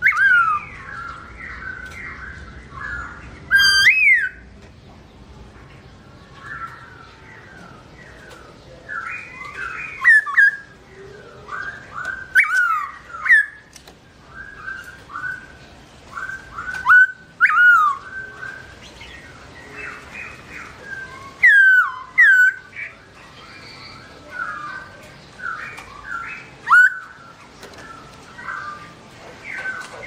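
Caged black-throated laughingthrush (Garrulax chinensis) singing: a varied, continuous run of chattering and whistled phrases, broken every few seconds by loud, sharp, sweeping whistles.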